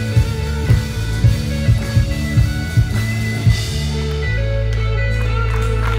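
Live worship band playing amplified guitars, bass and drum kit with a steady beat; about four seconds in the drums stop and the band holds a sustained closing chord over a low ringing bass note.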